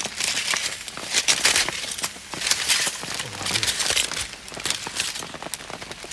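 Aluminium foil packet being unwrapped by hand, with irregular crinkling and crackling throughout. The packet is being opened to check whether the grilled salmon inside is done.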